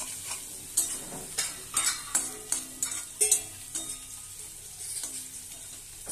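Chopped bitter gourd and onion sizzling in hot oil in a metal kadai, nearly done frying. A spatula stirs them, knocking and scraping against the pan in a quick run of strokes over the first three seconds or so, after which mostly the steady sizzle remains.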